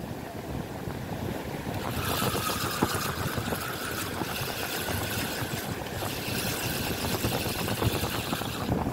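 Surf washing up the beach with wind buffeting the microphone, a steady rushing noise. A faint, steady high whine joins in about two seconds in.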